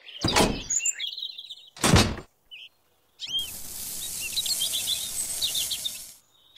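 A couple of knocks, with a loud thunk about two seconds in, then fine sand poured from a small toy bucket into a tin-can toy cement mixer: a steady hiss for about three seconds that stops abruptly. Birds chirp throughout.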